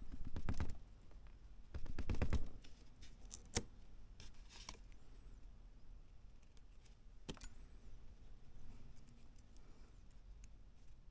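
Small plastic and metal parts of a Mini 4WD kit being handled: two short rattling bursts in the first couple of seconds, then scattered light clicks, with one sharp click about three and a half seconds in and another about seven seconds in.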